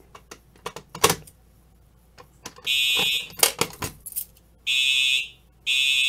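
A few clicks, then a fire alarm horn sounds one short blast and, after a pause, further blasts about a second apart. The notification appliances are pulsing out point number 13 in the panel's walk test.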